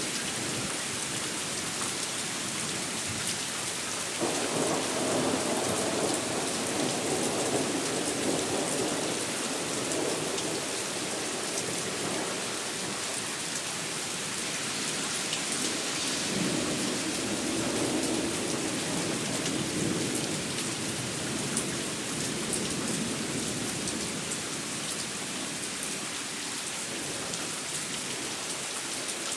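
Thunderstorm: steady rain hissing, with two long rolls of thunder. The first breaks in suddenly about four seconds in and rumbles for some six seconds; the second swells up about halfway through and fades over about five seconds.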